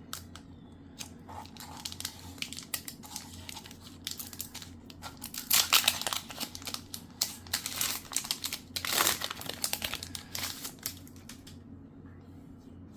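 Foil Pokémon TCG booster pack wrapper crinkling and tearing as it is opened, in irregular crackles that are loudest around the middle and die away a little before the end.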